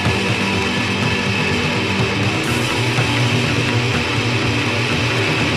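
Noise-pop band recording: a loud, dense, steady wall of electric guitar with bass, and no singing.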